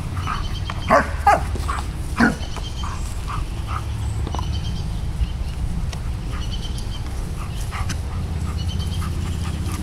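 German shepherds at play: a dog gives three short barks within the first two and a half seconds, followed by quieter sounds of the dogs scuffling over a steady low rumble.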